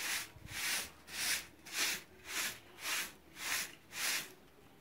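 A hand wiping the dry, lime-coated surface of a comal in quick back-and-forth strokes, about two a second, brushing off calidra (slaked lime) dust. It is a hissing rub that stops shortly before the end.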